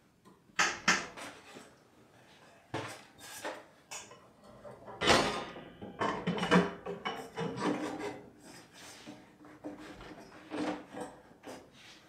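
Manual screen-printing press and its aluminium screen frame being handled, giving a string of knocks, clicks and scraping rubs. The loudest knocks come about five and six and a half seconds in.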